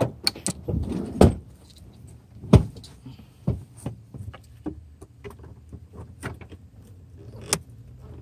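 Irregular knocks, clicks and light metallic clinks of hands and a screwdriver-type tool moving about a stripped car interior, the sharpest about a second, two and a half and seven and a half seconds in, over a low steady hum.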